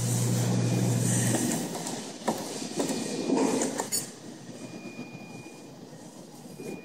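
Claw crane machine running: a steady motor hum for about the first second and a half, then a few clicks and clatters as the claw moves and drops into the plush toys, over general arcade noise.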